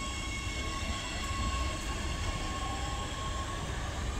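Oslo metro train pulling out of the station: a steady electric whine in several pitches over the low rumble of the wheels on the track, the whine fading out about three seconds in as the train leaves.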